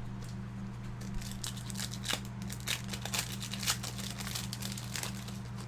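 Trading cards and foil pack wrappers being handled: irregular crinkling and light clicks as cards are sorted, over a steady low hum.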